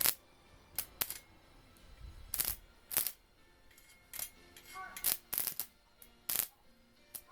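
Small metal parts and tools being handled: about a dozen sharp, irregular clinks and clicks, some with a brief metallic ring.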